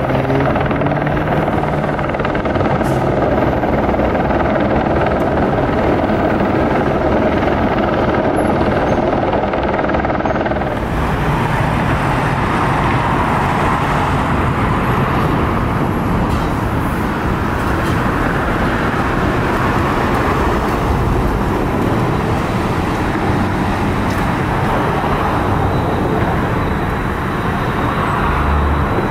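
Steady, loud vehicle engine and road noise, with a set of higher steady tones dropping out about ten seconds in.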